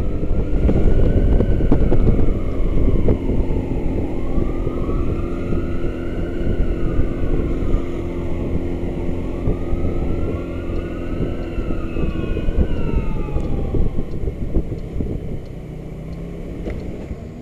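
Buddy 125 scooter running at cruising speed, with steady engine and road noise. Behind it, an emergency-vehicle siren wails in slow, overlapping rising and falling sweeps, fading near the end.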